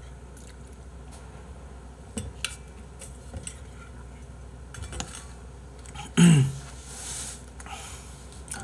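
Clinks and knocks of a stainless steel tumbler and its straw lid being handled and set down, a few separate taps spread out. About six seconds in comes a short, loud sound that falls in pitch.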